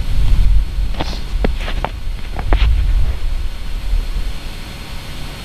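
Wind buffeting the microphone with a steady low rumble. About a second in, a quick run of five or six short, sharp clicks or pings cuts through it.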